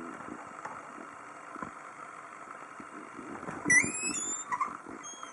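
Squeaky door hinge: faint low creaking and rumbling, then about three and a half seconds in a loud, high squeak that rises slightly in pitch, followed by a shorter, lower squeak.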